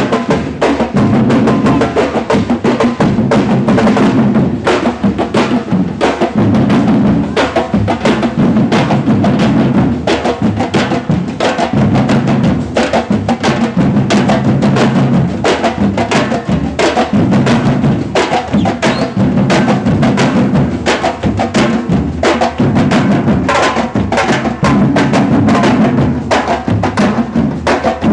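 Batucada drum ensemble playing a fast, steady samba rhythm: bass drums under dense, rapid strokes of higher drums and percussion.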